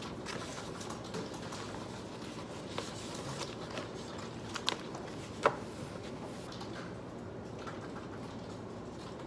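Printed paper sheets being leafed through and shuffled on a desk, with a few short sharp clicks, the loudest about five and a half seconds in, over steady background noise.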